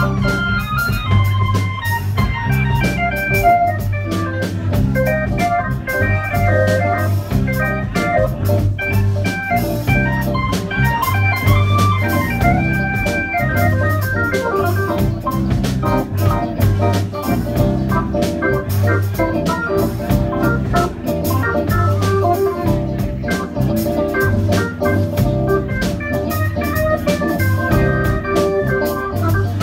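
Live band playing a funk instrumental. An organ sound from a Kurzweil keyboard plays quick melodic lines over a repeating bass line and drums.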